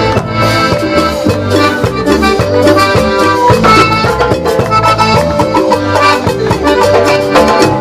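Live cumbia band playing an instrumental passage between sung lines, with a steady, repeating bass beat under pitched instruments and percussion.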